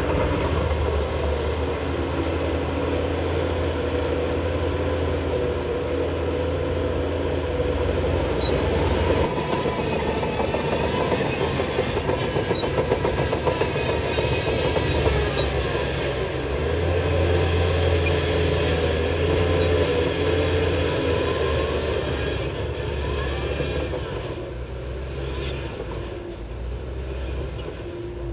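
Shantui crawler bulldozer working: its diesel engine running steadily under load, with the clatter of its steel tracks. The sound changes abruptly about a third of the way in.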